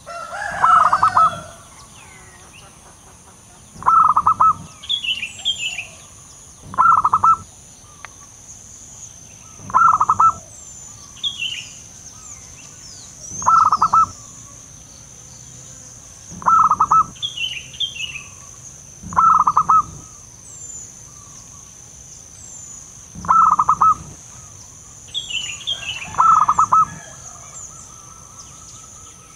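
Zebra dove (perkutut) cooing: nine short, rapid stuttering coo phrases, repeated about every three seconds. Brief higher chirps from other birds come between some phrases, over a steady high-pitched buzz.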